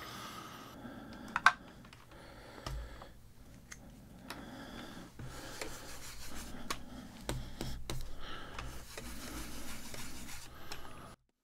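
Hands handling crafting supplies: plastic stencil sheets rubbing and shifting, and plastic ink pad cases being picked up and set down, giving scattered clicks and taps with one sharper click about one and a half seconds in. The sound cuts off suddenly just before the end.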